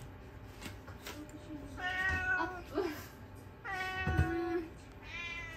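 Domestic cat meowing, three drawn-out meows about a second and a half apart, begging for the food being cooked.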